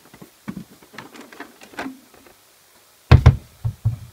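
Plastic lid of a Vestax portable turntable case being unlatched and lifted off: light clicks and knocks, then several heavier thumps about three seconds in.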